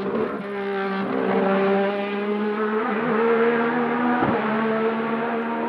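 Alfa Romeo 2.5 L V6 in the Juno Racing CH2 hillclimb prototype, run without sound restrictors, held at high revs up the climb. The pitch sags a little and rises again, with two brief breaks in the note about three and four seconds in.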